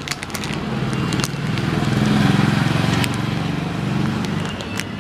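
A motor vehicle's engine passing, a low hum that grows louder to about the middle and then fades, with a sharp click about three seconds in.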